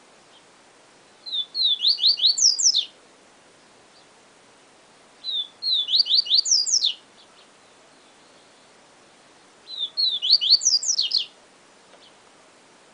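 Papa-capim seedeater (Sporophila) singing its 'siu siu professor' song type. Three short phrases, each about a second and a half of quick, sharply falling high notes, come a few seconds apart.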